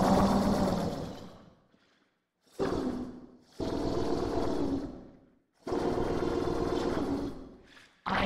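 A person's voice making long wordless drawn-out sounds, four of them, each one to two seconds long with short silent gaps between, and another starting at the very end.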